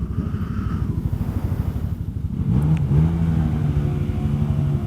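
Motorcycle and maxi-scooter engines idling close by with a fast, pulsing low note. About two and a half seconds in, an engine revs up and holds a steady higher pitch.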